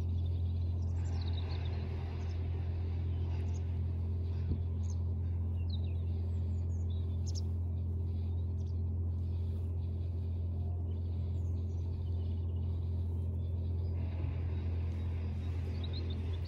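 A steady low mechanical hum, like a distant motor, with birds chirping now and then.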